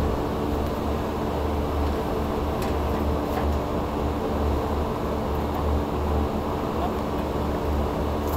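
Steady machine drone with a low hum, typical of rooftop HVAC equipment running, with a few faint clicks.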